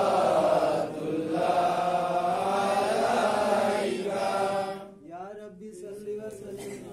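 A group of voices chanting a devotional chant together in long, drawn-out phrases. The chant stops about five seconds in, leaving quieter voices talking.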